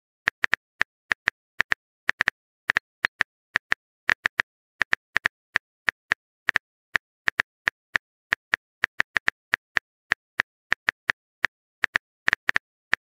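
Phone keyboard typing sound effect: a long run of short, sharp tapping clicks, about four a second at uneven spacing, the sign of a text message being typed out.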